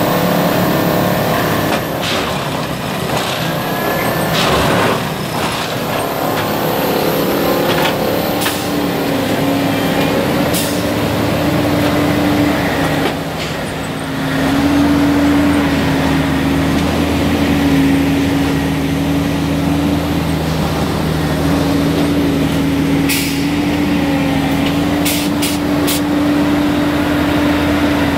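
Plasser & Theurer heavy track maintenance machine working: its engine settles into a steady hum about eight seconds in, over clatter and scattered sharp knocks.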